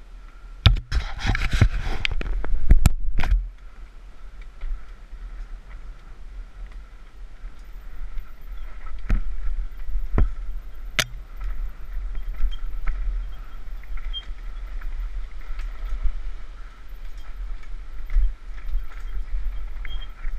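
Mountain bike riding down a rough trail: a loud clatter of the bike over rough ground for a few seconds near the start, then steady tyre and trail noise with a low rumble, and several sharp knocks a few seconds apart in the middle.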